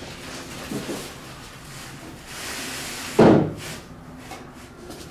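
Metal tree stand being loaded into a pickup truck's bed: a small knock, a scrape as it slides, then a heavy thud a little over three seconds in as it is set down.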